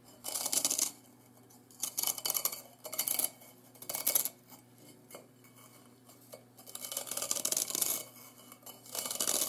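Steel dividers scribing a circle into a soft firebrick: the point scratches across the brick in about six separate scraping strokes, each half a second to a second long, the longest about two-thirds of the way through.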